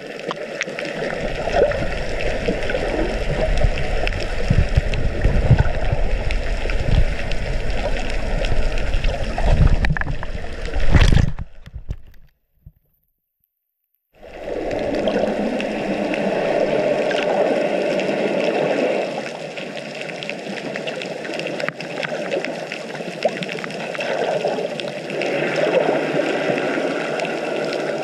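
Muffled rush and gurgle of water against an underwater camera housing, with low rumbling bumps in the first part. The sound drops out completely about twelve seconds in for about two seconds, then the water noise resumes more evenly.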